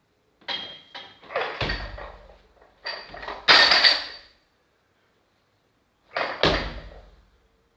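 Loaded barbell clanking and thudding against the floor, its plates rattling with a metallic ring. There are three groups of knocks: about half a second to two seconds in, a loudest heavy thud about three and a half seconds in, and another about six and a half seconds in.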